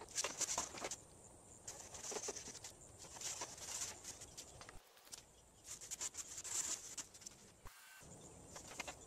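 A cloth rag rubbing and wiping across flat door panels in quick, uneven strokes, with a few light clicks as the panels are handled.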